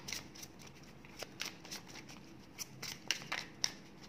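Divination cards being shuffled and handled by hand: irregular soft snaps and flicks of card edges, a few crisper ones near the end.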